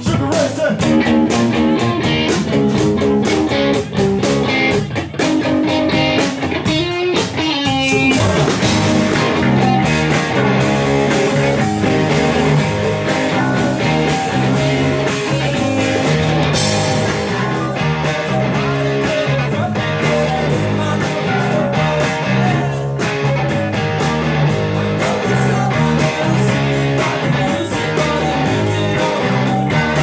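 Live rock band playing loud: electric guitars, bass guitar and drum kit.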